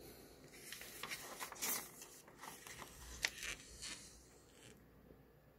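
A magazine page being turned by hand: paper rustling and crinkling for about four seconds, loudest about a second and a half in.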